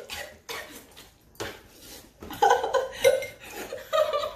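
Dishes and cutlery clattering, with people laughing.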